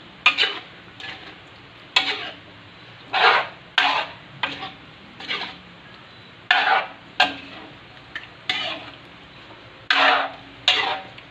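A metal spatula stirs beef pieces and tomato sauce in a metal wok, scraping and knocking against the pan. There are about a dozen irregular strokes.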